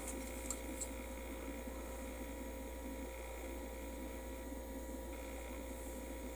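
Steady electrical hum over room tone, with a few faint light clicks in the first second.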